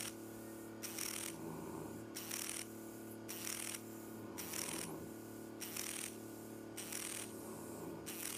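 Motorized FUE punch handpiece of a Trivellini hair-transplant device: a steady hum with a short, hissy whir about once a second as the punch is driven into the scalp for each graft.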